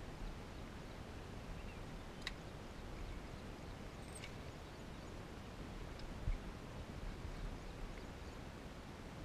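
Steady low outdoor rumble of wind and handling noise, with a few faint high clicks and chirps and one dull knock about six seconds in.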